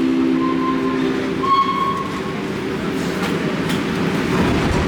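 A century-old IRT Low-V subway train pulling out and rolling past, its wheels and motors running. A steady chord of several held tones stops about a second and a half in, and a few sharp clacks of the wheels over the rail joints follow.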